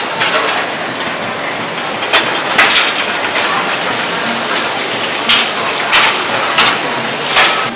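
Busy restaurant kitchen at a gas range: a steady rushing noise with irregular clanks of pans and utensils every second or so.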